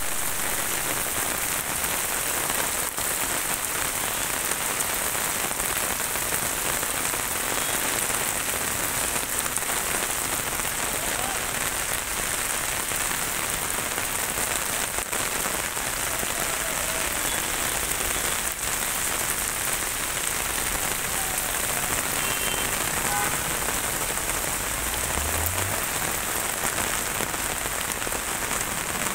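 Heavy rain falling steadily on a street, a continuous even hiss.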